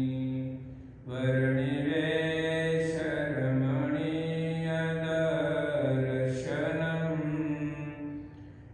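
A Sanskrit devotional verse chanted slowly in long drawn-out notes, with a short breath pause about a second in and another near the end.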